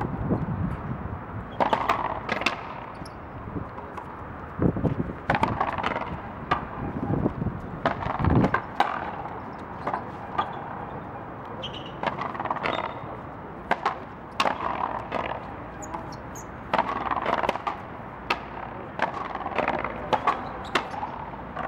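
Frontón racquet rally: sharp cracks of racquets striking the ball and the ball smacking against the frontón wall in quick runs of hits, with a quieter gap between points around the middle.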